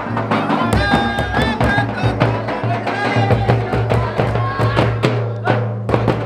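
Folk music with drums beating a quick, steady rhythm and a wavering melody line over it.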